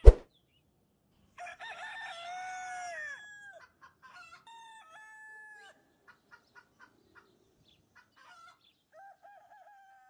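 A rooster crowing: one long crow with its pitch falling at the end, then fainter drawn-out calls, a run of short clucks, and a wavering call near the end. A brief loud click right at the start is the loudest sound.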